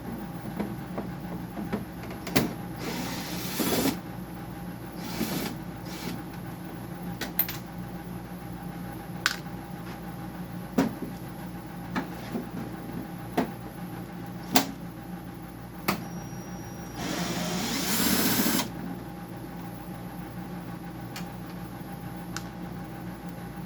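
Hand tools working on a dehumidifier's case as its screws are taken out: scattered clicks and knocks, and two brief louder rasping bursts, about three seconds in and again near the end, over a steady machine hum.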